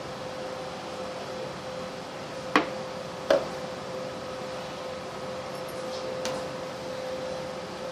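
Two sharp clinks about two and a half and three and a quarter seconds in, as a ceramic cup and a steel milk pitcher are set down on a stone countertop, with fainter light ticks later. A steady hum runs underneath.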